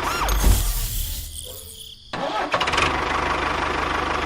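A small engine running with a steady rapid beat, starting abruptly about two seconds in; before it, a short falling whistle and a low thump that fade away.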